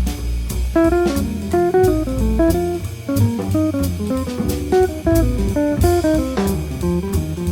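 Jazz guitar music: a quick run of single plucked notes over bass and a drum kit keeping a steady beat.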